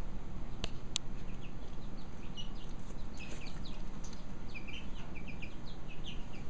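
Young chickens cheeping in a run of many short, high chirps that come thicker in the second half. Two sharp clicks sound about a second in.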